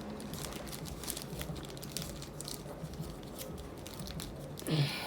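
Plastic packaging crinkling as it is handled, in scattered small crackles.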